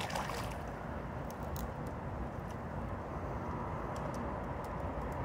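A hooked barbel splashing at the river surface, with a short burst of splashing at the start, then a steady low rush with a few faint clicks as the fish is played in toward the landing net.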